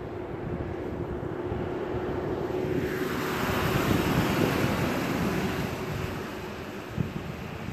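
A shuttle bus passing close by on the highway: the rush of its engine and tyres swells from about two and a half seconds in, peaks around four seconds, and fades over the next two seconds, with wind on the microphone throughout.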